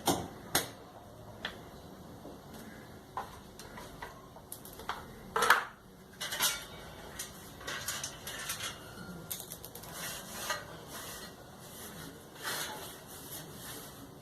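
Irregular clinks, knocks and clatter of metal tools and parts being handled, the loudest knock about five and a half seconds in.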